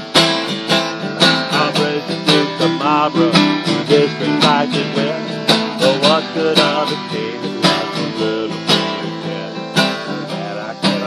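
Instrumental break of an acoustic folk song: an acoustic guitar strummed in a steady rhythm, with a clarinet playing a wavering melody over it and an upright bass underneath.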